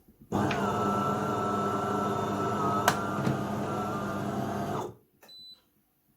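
De'Longhi Dinamica Plus bean-to-cup machine's built-in coffee grinder running steadily for about four and a half seconds, then stopping suddenly, with a sharp click about halfway through. It is loud, as a new grinder is before it quietens after its first five or six cups.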